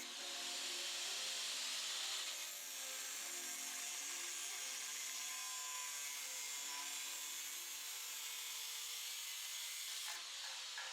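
A small power tool working on a steel bumper bar, a steady high grinding hiss with a faint motor tone underneath.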